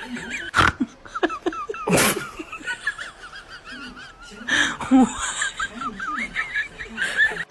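People laughing, over many high, wavering squeaks and chirps, with a few short, loud sharp bursts.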